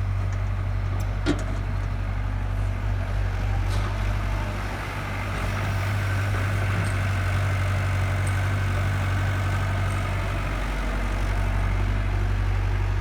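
Hyundai 85A excavator's diesel engine running steadily while working, the level dipping briefly about five seconds in. A single sharp click about a second in.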